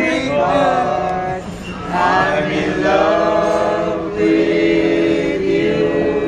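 Vocal music: several voices singing long held notes over a steady low drone.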